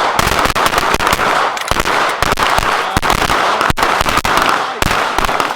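Rapid semi-automatic pistol fire from several shooters on a firing line, with shots overlapping in a dense string for about five seconds. This is a timed box drill started by a shot-timer beep. The firing thins out and stops near the end.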